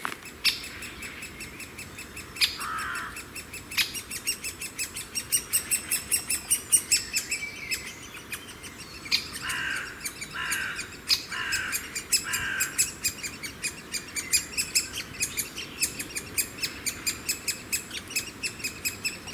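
Great spotted woodpecker nestlings begging at the nest as an adult feeds them: a rapid, continuous chatter of high calls, several a second. Near the middle, four lower calls falling in pitch come about a second apart.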